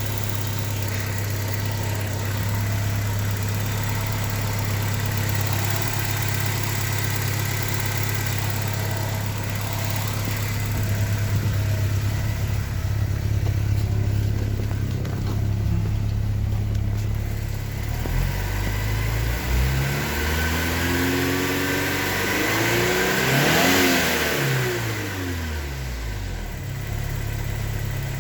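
1989 Porsche 944 Turbo's M44/52 turbocharged four-cylinder engine idling with a ticking noise of unknown cause. About two-thirds of the way through it is revved up and back down a few times, then settles back to idle.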